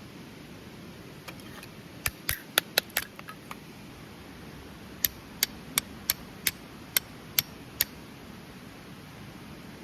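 A series of sharp, high clicking strikes. There is an irregular cluster about two seconds in, then eight evenly spaced strikes, about two and a half a second, ending near the end.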